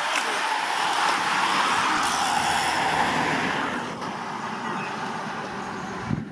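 Steady rushing road noise from a passing group of racing cyclists and race vehicles, easing a little about four seconds in, with one short thump just before the end.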